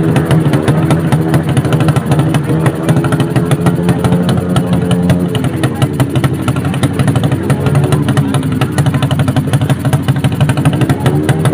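Motorcycle engine running loudly, its pitch rising and falling a few times with the throttle.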